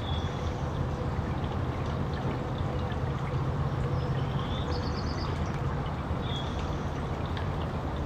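Small water fountain splashing steadily, its jets of water pattering down without a break. A few faint, short high chirps come through near the start, about four to five seconds in, and again about six seconds in.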